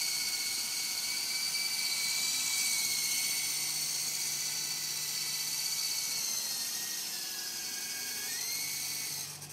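Volitation 9053 coaxial RC helicopter's electric motors and rotors whining steadily as it lifts off and hovers just above the ground. Near the end the pitch sags for about two seconds, then rises back.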